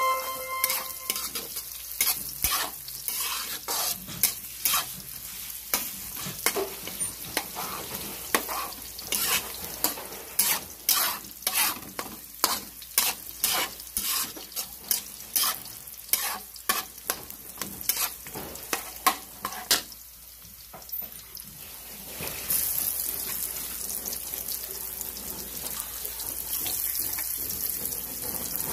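Food being sautéed in a frying pan, a utensil clacking and scraping against the pan in quick irregular strokes over a sizzle. After a short lull about 20 seconds in, the stirring stops and a steady sizzle carries on.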